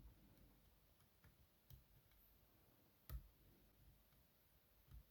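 Faint, sparse clicks of a hook pick and pin stack working inside an ASSA 500 pin tumbler lock, the clearest about three seconds in.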